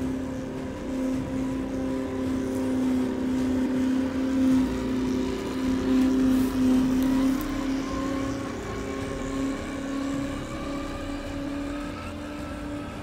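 Electric motor and gear drivetrain of a 1/8 scale Double Eagle Defender RC truck whining steadily as it drives over a dirt and leaf trail. The whine creeps slightly higher in pitch in the second half.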